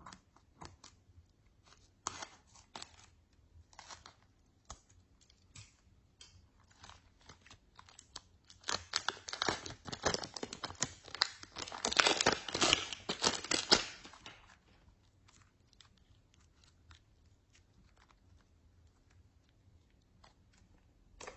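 Slime being handled and mixed by hand: scattered crackles and crinkles, turning into a dense, louder run of crackling from about 9 to 14 seconds in.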